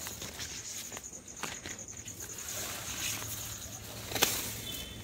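Insects chirping in a fast, even pulse, with soft rustles of turmeric leaves being handled and one sharp snap about four seconds in as a leaf is cut from the plant.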